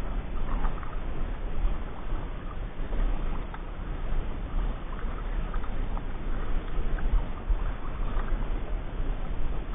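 Kayak paddle strokes in the water, the blade dipping and splashing with light scattered clicks, over a steady low rumble.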